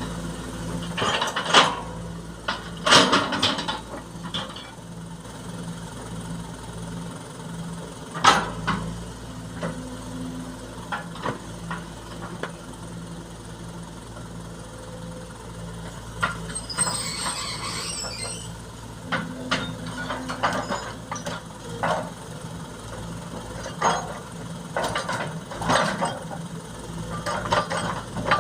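Heavy diesel engine running steadily during excavator loading of sand into a dump truck, with sharp clanks and knocks now and then and a few seconds of hissing rush about sixteen seconds in.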